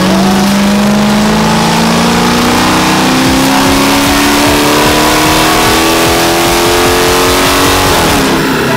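Dodge Charger's engine at full throttle on a chassis dyno, its pitch climbing smoothly and steadily through one gear for about eight seconds, then dropping near the end as the run ends.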